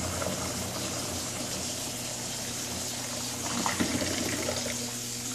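Water pouring from a bathtub filler spout into a jetted tub in a steady stream. A low hum underneath stops about five seconds in.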